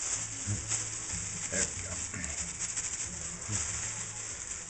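Plastic bag crinkling and rustling as a Cornish game hen is shaken inside it to coat it in seasoned flour, in irregular shakes with a few sharper crinkles.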